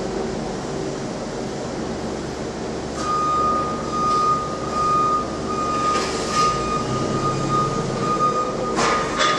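Forklift warning alarm: a steady high tone starts about three seconds in and keeps sounding over a low machinery hum. A couple of sharp clanks come near the end.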